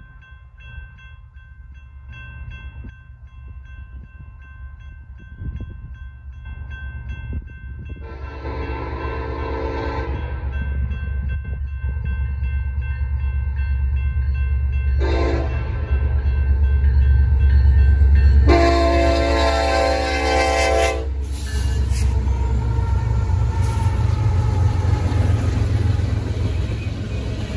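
Freight train at a grade crossing, led by an EMD SD70ACe diesel locomotive. Its air horn gives the crossing signal: a long blast about eight seconds in, a short one around fifteen seconds, and a long blast near eighteen seconds lasting a couple of seconds. Under the horn, the diesel rumble grows louder as the locomotives reach the crossing, and empty gondola cars then roll past; early on the crossing bell rings steadily.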